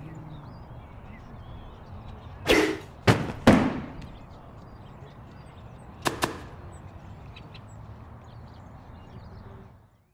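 Low steady background with faint chirps, broken about two and a half seconds in by a loud swish and then two heavy slam-like hits, the second trailing off; a sharp double click follows about six seconds in, and the sound cuts off just before the end.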